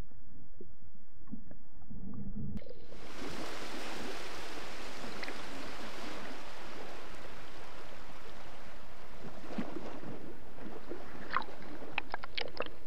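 Steady wash of sea water and waves, muffled at first and opening up to a full, bright hiss about two and a half seconds in, with a few short splashes near the end.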